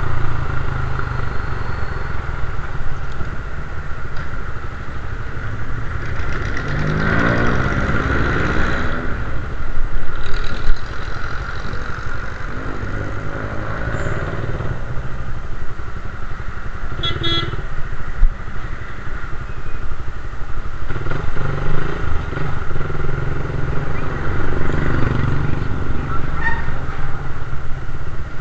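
Suzuki Raider 150 carburetted motorcycle's single-cylinder four-stroke engine running under way, the revs rising as it pulls away and later rising and falling with the throttle. A short high beep sounds a little past halfway.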